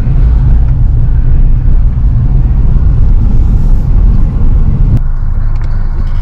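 Car driving, with a steady low rumble of road and engine noise heard inside the cabin; the higher hiss drops away abruptly about five seconds in.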